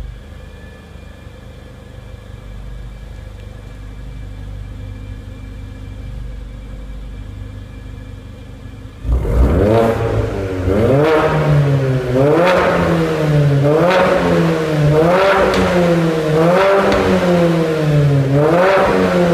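Mercedes-AMG CLA45's turbocharged four-cylinder engine idling quietly through an Armytrix valved cat-back exhaust. About nine seconds in it turns sharply louder and is revved again and again, about seven blips that each rise and fall in pitch, roughly one every second and a half.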